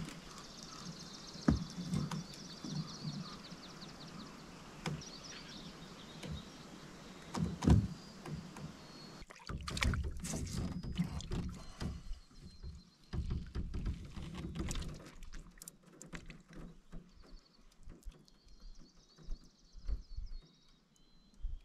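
Quiet handling sounds in an aluminum boat as a fish is worked out of a landing net: scattered knocks, bumps and rustles, with a louder cluster about eight to eleven seconds in.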